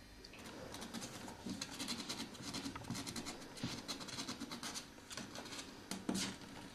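Scratchy rustling of Ragdoll kittens scrambling about on their bedding, a busy run of short scratches that starts a moment in, with the loudest bursts near the end.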